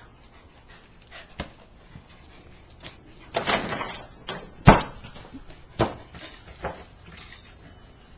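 A dog playing with a basketball: a handful of sharp knocks and thumps, the loudest about five seconds in, along with short dog sounds.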